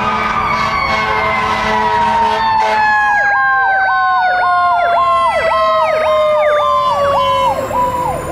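Fire engine running with its sirens on. One long wailing tone slowly falls in pitch, and from about three seconds in a second siren yelps rapidly over it, about two sweeps a second.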